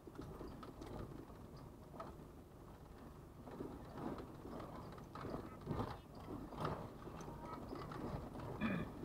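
Car rolling slowly over a cobblestone street: a low rumble broken by irregular knocks and rattles as the tyres go over the stones.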